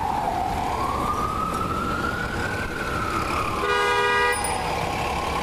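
Ambulance siren wailing, sliding slowly down, up and down again in pitch over a low rumble. A short horn blast sounds about four seconds in.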